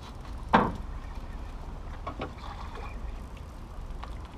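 Steady low rumble of wind and water around a small outrigger boat, with one sudden thump about half a second in.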